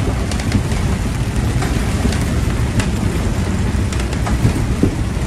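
Steady loud rumble of wind and the engines on a motor cruiser's enclosed flybridge as it drives through a storm in rough water, with rain and spray ticking irregularly on the clear vinyl enclosure.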